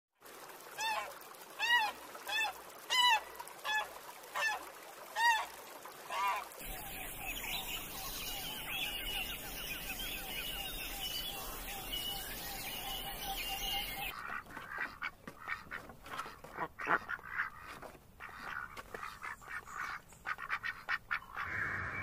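Canada geese honking, about eight loud calls in the first six seconds. From about seven seconds a flock of small songbirds chatters and twitters steadily. From about fourteen seconds comes an uneven run of sharp clicks and taps with thin high calls.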